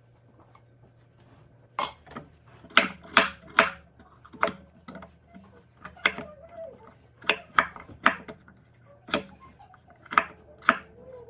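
Chef's knife chopping peeled russet potatoes on a wooden cutting board: a string of sharp knocks, often two or three close together, starting about two seconds in.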